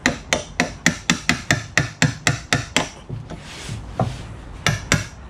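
A hammer striking a wood chisel in quick succession, about six blows a second, chopping out a mortise in a wooden plank. The blows stop about three seconds in, and a few more strikes follow near the end.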